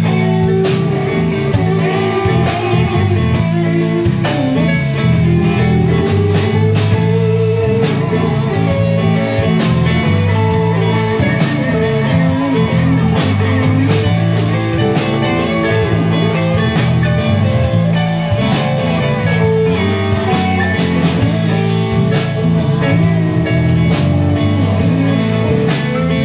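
Live rock band playing an instrumental passage with no singing: electric guitars, electric bass and a drum kit keeping a steady beat. The lead guitar line has bent notes.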